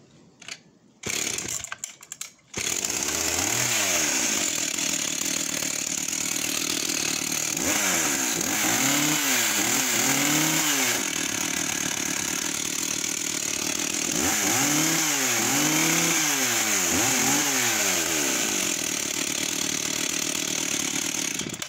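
Echo 8000 80cc two-stroke chainsaw started with a couple of short pulls, catching about two and a half seconds in. It idles, then is revved up and down several times in quick succession, twice. The engine cuts off at the very end.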